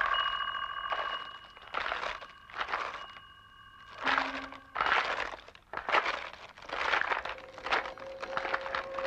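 Animated sound effect of bones cracking and crunching in a run of short, irregular bursts, about a dozen. Steady high tones sound underneath for the first second or so.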